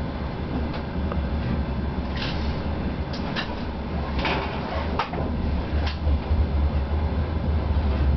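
DR1A diesel multiple unit running with a steady low drone from its diesel engine, heard from inside the driver's cab. Between about two and six seconds in, a run of sharp clacks as the wheels cross rail joints and switches on the approach tracks.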